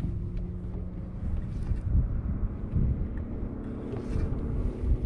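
Wind buffeting the microphone in uneven gusts of low rumble, with a faint steady hum underneath. A sharp click comes right at the end.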